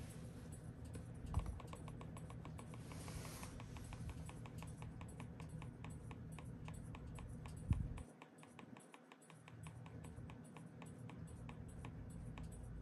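Gigabyte G5 laptop keyboard keys clicking in a fast, even run of presses, as if a key is being tapped repeatedly. A louder thump comes about a second and a half in, and another near eight seconds.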